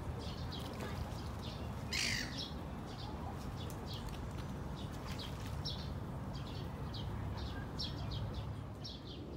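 Birds chirping over and over in short high calls, with one louder, harsher burst about two seconds in, over a steady low rumble.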